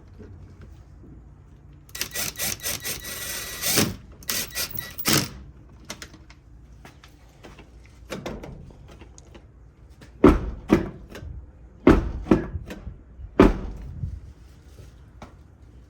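Clicks and heavy thunks from a pickup truck door and its newly fitted outside handle and latch being worked: a quick run of rattling clicks about two seconds in, then several loud knocks and thuds towards the end.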